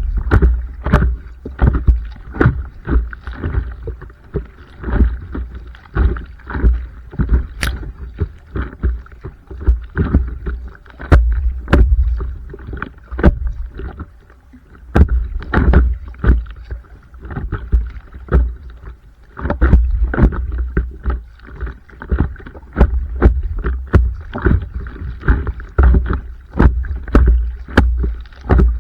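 Stand-up paddleboard paddle strokes in river water: rhythmic splashing about once a second, with a low rumble underneath.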